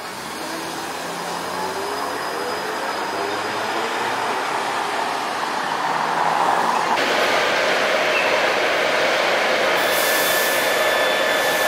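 An electric trolleybus pulls away, its motor whine rising in pitch, with passing car traffic. About seven seconds in this gives way to a light-rail train in an underground station: a louder, steady rumble with high whining tones held over it.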